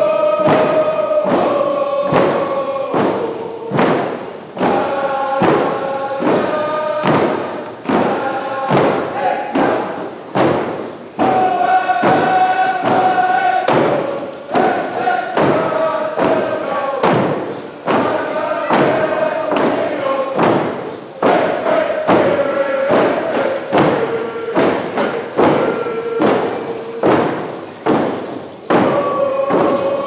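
Nisga'a hand drums, many round hide frame drums, beaten together in a steady beat under a large group singing a song in unison with long held notes.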